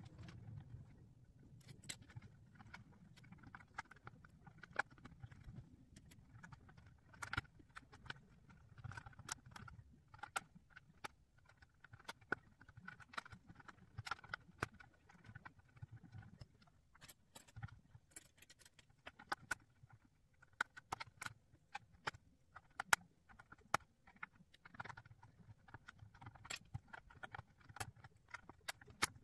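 Plastic pieces of a Ravensburger 3D puzzle ball being fitted and pressed into the curved shell: irregular light clicks and taps, with a faint low hum underneath.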